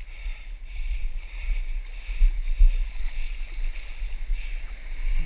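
Wind buffeting the camera microphone as a low, uneven rumble, over shallow surf water washing and lapping.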